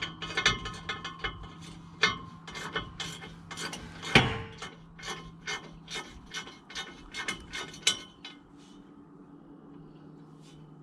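Ratchet wrench clicking in short strokes, roughly two to three clicks a second, with one louder metallic knock about four seconds in; the clicking stops near the end.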